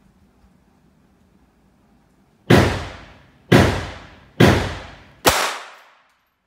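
Four pistol shots from a GSG 1911 .22 rimfire pistol, fired about a second apart starting two and a half seconds in, each sharp crack followed by a short echo off the range hall.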